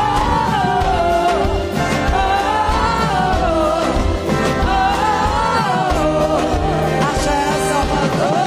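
Music with singing over a steady, heavy bass beat.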